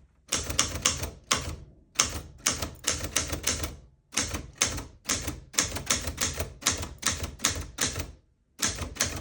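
1947 Underwood manual typewriter being typed on: sharp key strikes in quick runs of several strokes, with brief pauses between runs and a longer pause near the end.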